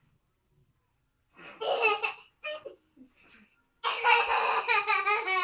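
A young child laughing in short, high-pitched bursts, then a longer run of laughter near the end.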